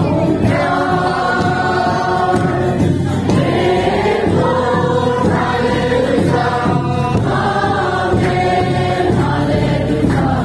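A church congregation singing a hymn together, men's and women's voices in a group, without a break.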